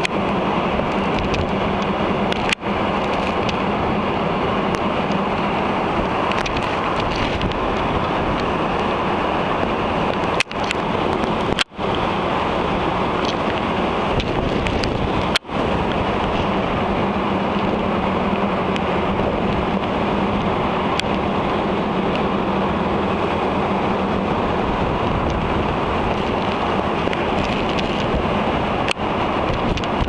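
Strong storm wind blowing across a ship's deck and buffeting the microphone, over the rush of a breaking, spray-swept sea. The sound cuts out for an instant a few times.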